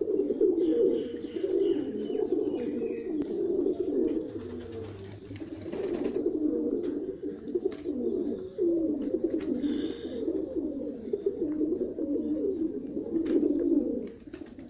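A flock of Pakistani domestic pigeons cooing, many low voices overlapping into one continuous chorus, with a few faint sharp clicks.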